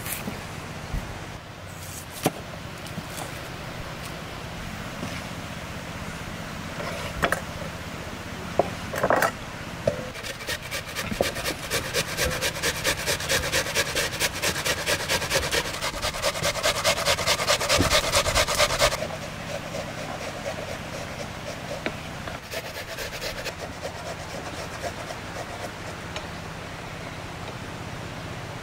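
An onion being grated on a metal box grater: rapid, even rasping strokes that go on for about eight seconds and then stop suddenly. A few scattered knocks come before it.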